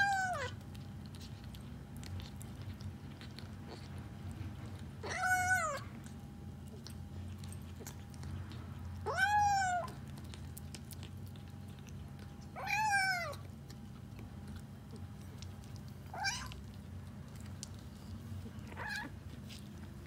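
Kitten crying with high meows while it eats dry kibble: four loud meows about four seconds apart, each rising then falling in pitch, then two fainter, shorter ones near the end.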